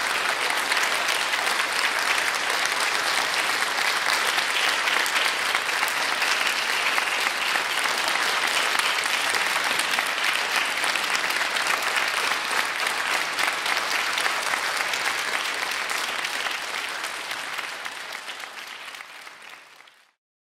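Audience applauding steadily in a concert hall, then fading away near the end.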